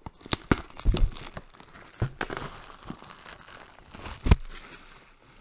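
Plastic wrap crinkling and tearing as a cardboard mystery box is ripped open by hand, with irregular sharp crackles and a loud snap about four seconds in.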